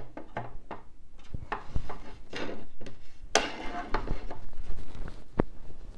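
Small Christmas ornaments and trinkets being handled and set down on a tiered tray: a scattered run of light clicks and knocks with some rustling.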